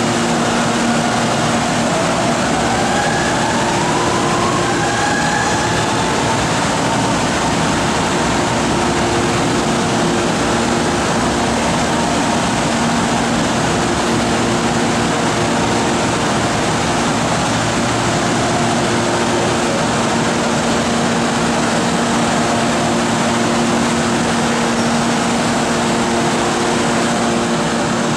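Electric commuter trains in a large station: a steady loud hum with a few held tones throughout, and in the first five seconds a rising electric motor whine as a train picks up speed.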